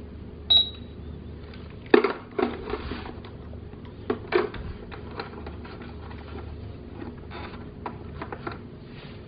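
Battery-powered toy cash register by 5 Stars Toys gives one short, high electronic beep as a keypad button is pressed. Then come scattered plastic clicks and knocks as the toy and its handheld scanner are handled.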